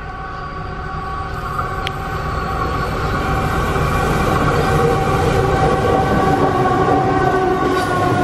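Two Aurizon diesel-electric locomotives at the head of an empty coal train approach and pass close by, their engine rumble and a steady whine growing steadily louder as they near.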